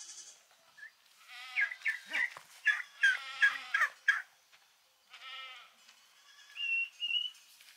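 Goats bleating repeatedly: a run of overlapping calls in the middle and one more about five seconds in, with a short high chirp near the end.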